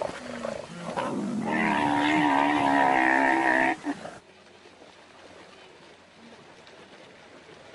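A large animal's long, wavering call with a clear pitch, lasting about two seconds and cutting off suddenly.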